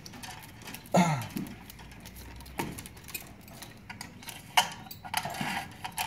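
Scattered light clicks and rustling as electrical cable is handled and fed into a metal switch box, with a short low vocal sound about a second in.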